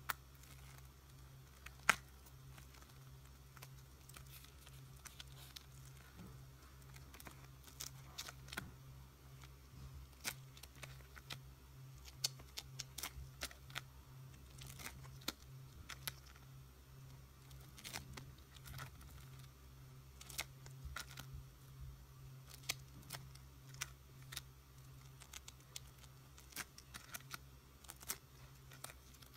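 Clear plastic refill pockets of a small ring binder being handled and turned: scattered short clicks and soft crinkles, the sharpest about two seconds in, over a steady low hum.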